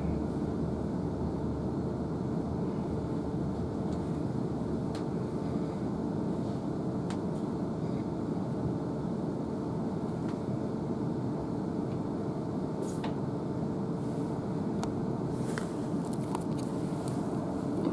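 Steady running noise of a Siemens Desiro electric multiple unit heard from inside the carriage as it moves slowly through a station, with a constant hum. Sharp clicks and ticks come more often over the last few seconds.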